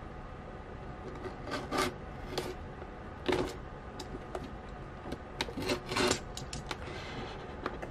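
A blade scraping and slicing through packing tape along the seam of a cardboard shipping box. The scratchy strokes come in short spurts, with a few louder scrapes about two, three and a half and six seconds in.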